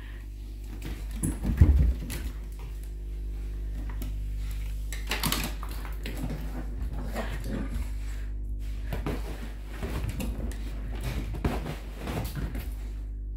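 Two dogs, one a Basenji, playing rough and scrambling about on a rug, a wooden floor and a sofa, with irregular thumps and scuffles. The loudest thump comes about a second and a half in.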